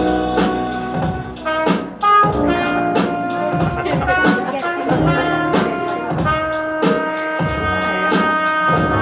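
Lively jazzy music with brass playing melody notes over a drum kit whose cymbal keeps a steady, quick beat.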